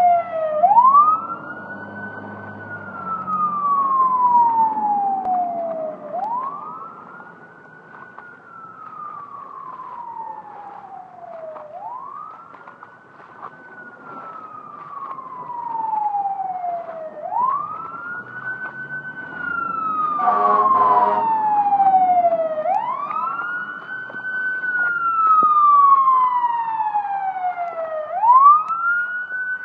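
Fire truck siren wailing in a slow repeating cycle, rising quickly and then sliding down, about every five and a half seconds. A short horn blast sounds about twenty seconds in.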